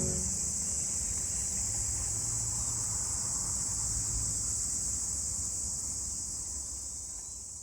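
Steady chorus of crickets, a continuous high-pitched trill that slowly fades toward the end.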